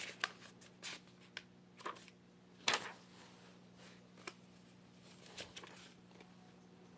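Pages of a lined paper notebook being turned by hand: a string of short paper rustles and flaps, the loudest a little under three seconds in.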